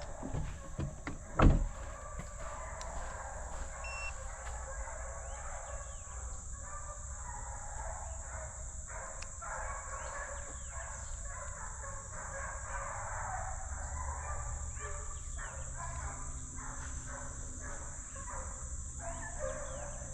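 A pack of hunting hounds barking and baying at a distance, many voices overlapping continuously. There are a couple of sharp knocks at the very start, and a steady high hiss runs underneath.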